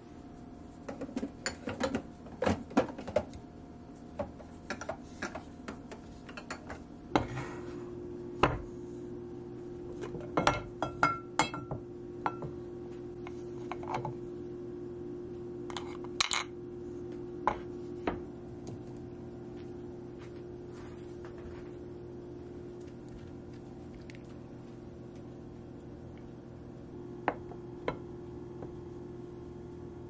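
Light clinks and knocks of kitchen containers being handled and set down: a ceramic butter dish, its bamboo lid and a metal spreader knife. They come in scattered clusters through the first half and twice more near the end, over a steady low hum.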